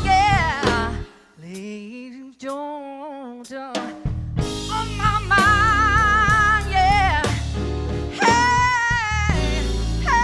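A live band plays with a singer holding long wavering notes over drums and bass. About a second in, the band drops out for roughly three seconds, leaving a softer wavering melodic line, then comes back in with the singer.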